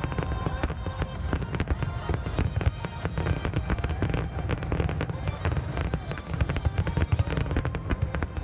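Fireworks going off in a rapid, continuous barrage of bangs and crackles, with music playing underneath.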